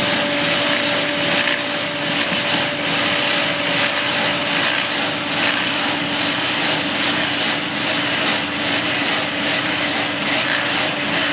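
FEIND WSF 800 truck-mounted root-barrier trencher at work: its side milling wheel cuts a narrow slot in the soil as the truck creeps forward. It runs steadily, an even hum under a constant noise, with no change in pace.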